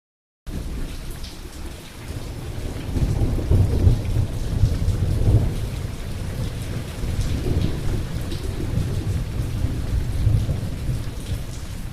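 Thunderstorm: steady rain hissing and pattering, under a long low rumble of thunder that swells about three seconds in and again near ten seconds.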